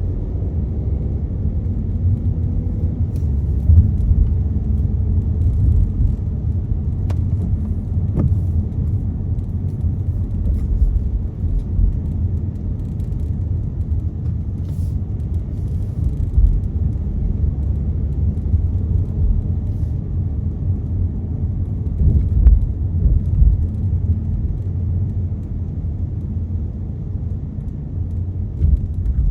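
Steady low rumble of a car driving on the road, heard from inside the cabin: engine and tyre noise, with a few faint ticks.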